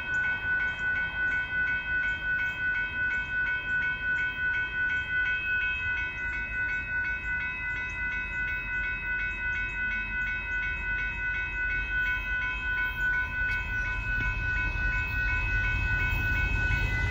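Railroad crossing bell ringing steadily, about two strokes a second, while the crossing lights flash and the gates are down. A low rumble builds in the last few seconds.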